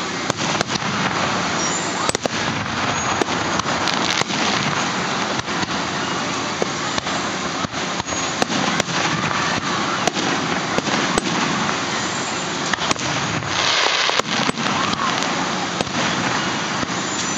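Aerial fireworks display: shells going off in many sharp bangs and crackles at irregular intervals over a steady rushing background, with a dense patch of crackling a little before the end.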